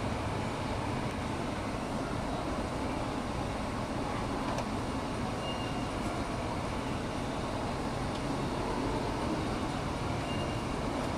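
Steady low rumble with a hiss over it, with no distinct events, like the constant drone of a vehicle or machinery. Two faint short high beeps sound, one about halfway through and one near the end.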